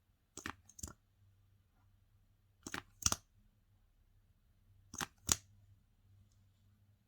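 Slime being pressed and released by hand, giving three pairs of sharp sticky pops about two seconds apart.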